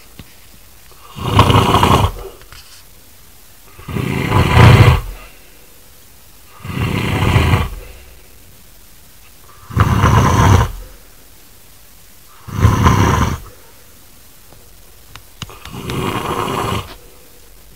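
A man snoring very loudly with grunting snores: six long, rasping snores, each about a second long and about three seconds apart, the last one weaker.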